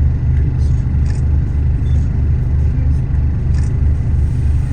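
A vehicle's engine running with a steady, loud low rumble.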